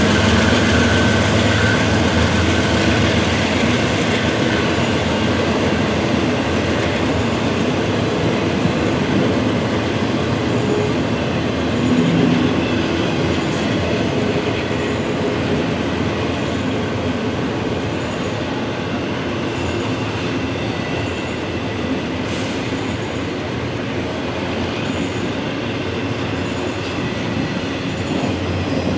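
Train rolling past, its railcars running steadily on the track, the sound slowly growing quieter.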